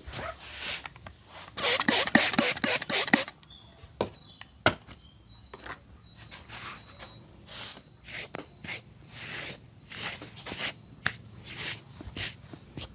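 Hands slapping and rubbing in a barber's massage: a quick burst of slaps about one and a half seconds in, a single sharp click a couple of seconds later, then rubbing strokes about twice a second.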